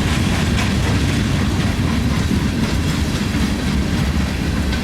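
Freight cars of a CSX salt train (rusty hopper cars) rolling past: a steady low rumble of steel wheels on rail with occasional clacks as wheels cross rail joints.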